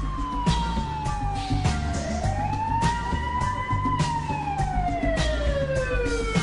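A siren wailing, its pitch sliding slowly up, holding and sliding down again in overlapping sweeps, over music with low bass notes and a steady beat.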